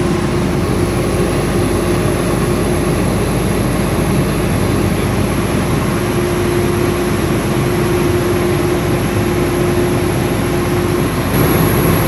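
Fire truck engine running at raised RPM in pump mode, driving its Waters midship fire pump as pump pressure builds: a loud steady drone with a steady hum and a high whine. About eleven seconds in the hum cuts out and the noise gets slightly louder.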